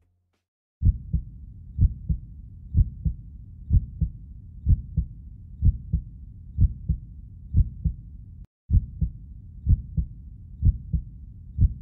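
Heartbeat sound effect: steady low double thumps, about one beat a second, starting a little under a second in and briefly cutting out about eight and a half seconds in.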